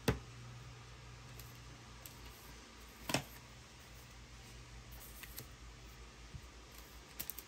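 A clear plastic phone case set down on a table with a sharp click. Another click follows about three seconds in, then a few light ticks as a screen protector is laid down, over a faint steady low hum.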